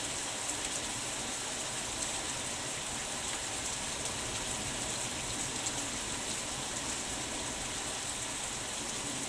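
Steady rain from a passing storm front falling on lawns, shrubs and roofs: an even hiss with no thunder in it.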